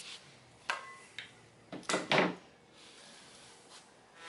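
A hewing axe with a wooden handle knocking against a wooden workbench as it is handled and laid down: a few short, sharp knocks, the loudest pair a little after two seconds in.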